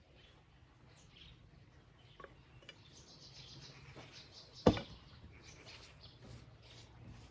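Light clinks of a metal spoon against a steel pot, then a sharp clank about four and a half seconds in as the pot is set down on the table. Faint bird chirps in the background.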